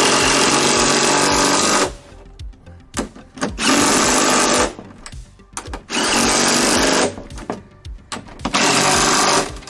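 DeWalt cordless impact driver running bolts down into a steel seat-mounting frame, in four bursts: the first about two seconds, the other three about a second each.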